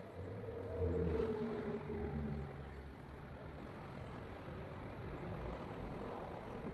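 A low engine rumble, loudest about a second in and then steady.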